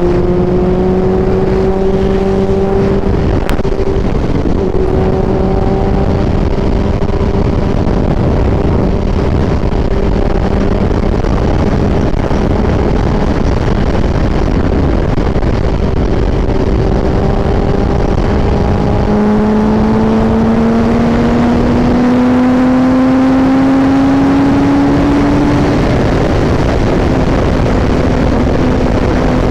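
A vehicle engine running at road speed under a loud, steady rush of wind noise. About two-thirds of the way through, its pitch steps up and climbs for several seconds as it accelerates, then drops back lower.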